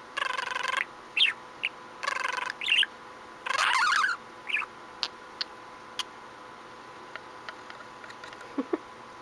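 Budgerigar chirping and chattering: three longer buzzy calls in the first four seconds with short chirps between them, then a few sharp clicks and faint ticks.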